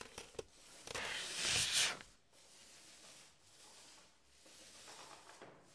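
A vinyl record being handled and set onto a turntable: a brief rustling swish about a second in, then only faint handling noises.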